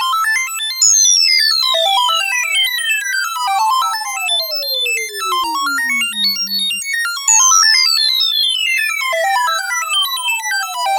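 Synthesized eerie sound effect: a fast, rippling run of electronic notes, with a long whistling tone sliding steadily down from very high to low pitch. The slide comes twice, about a second in and again past the middle.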